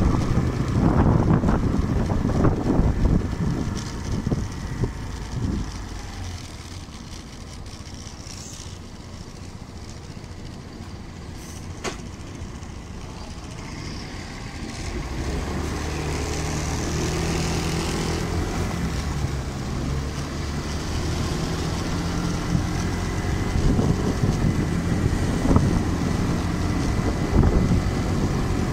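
Motor scooter riding in city traffic: engine noise and wind rushing on the microphone. The sound drops quieter from about six seconds in, then a steady engine hum comes in at about fifteen seconds and the wind noise builds again.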